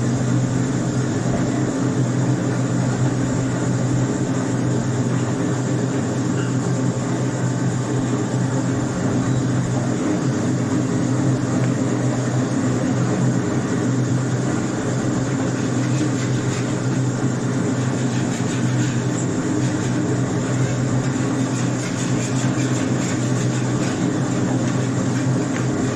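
Steady machine hum with a constant hiss over it, unchanging throughout.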